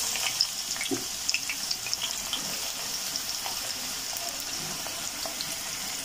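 Sliced onions sizzling in hot oil in a karahi: a steady hiss with scattered small crackles and pops.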